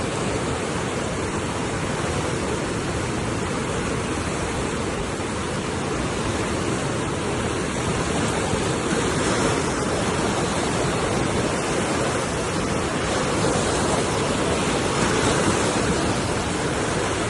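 Swollen river in flood after heavy rain: a steady, loud rush of fast-moving water, a little louder in the second half.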